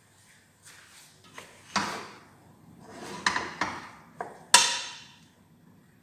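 Large stainless steel stockpot handled and shifted on a gas stove: several sudden metal clanks, the loudest about four and a half seconds in, ringing briefly.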